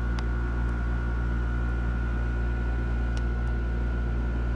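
Steady low electrical hum with a faint high whine above it, and two faint ticks, one just after the start and one about three seconds in.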